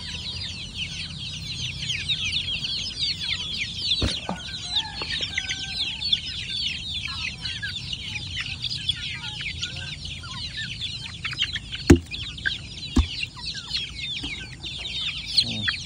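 A flock of Indonesian village chickens, mostly chicks, peeping constantly in many overlapping high chirps, with some lower clucking calls from older birds, as they crowd around feed. A few sharp knocks break in, the loudest about twelve seconds in.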